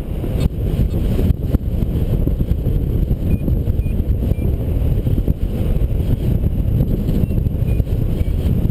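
Wind rushing over the microphone during paraglider flight: a loud, unsteady low rumble of wind buffeting, with a few faint short high beeps scattered through it.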